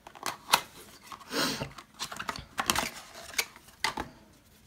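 A small cardboard product carton being opened and handled: irregular sharp clicks and taps with short rustles, the loudest click about half a second in.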